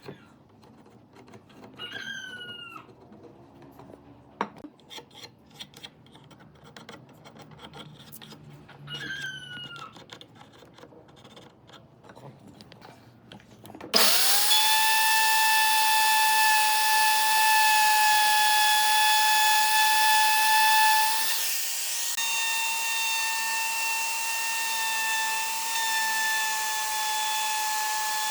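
A handheld power tool switches on suddenly about halfway through and runs loudly at a steady high whine, its pitch dipping slightly for a moment as it takes load. Before that, two short falling calls sound faintly.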